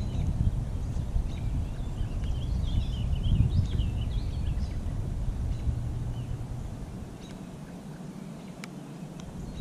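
A small bird twittering a quick run of chirps from about two seconds in, over a low rumble that drops away about seven seconds in; a single sharp tick near the end.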